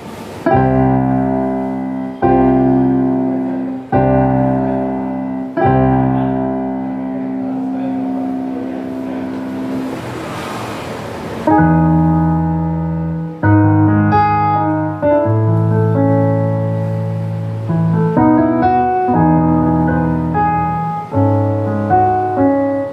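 Korg Kross 2 and Yamaha CK61 keyboards played in turn on a piano sound. First come four chords struck about every second and a half and left ringing, then a short wash of hiss. From about halfway, bass notes sound under a melody.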